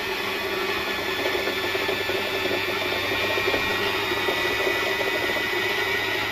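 Usha Janome Allure DLX sewing machine's motor running steadily while winding thread onto the bobbin, with the handwheel pulled out so the needle is disengaged and only the bobbin winder turns.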